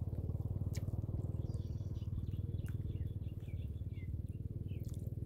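A steady low drone with a rapid even pulse, like a small engine running, with small birds chirping faintly over it.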